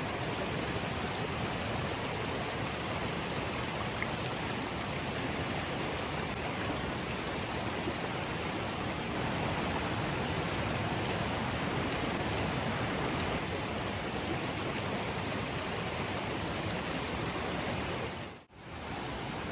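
Steady, even rushing noise that dips out abruptly for a moment about a second before the end.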